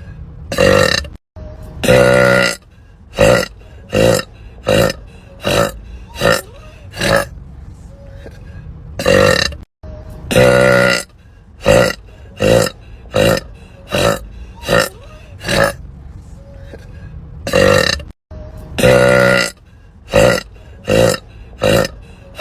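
A woman burping over and over: one long burp followed by a quick run of short burps about half a second apart, the whole sequence repeating as a loop about every eight and a half seconds.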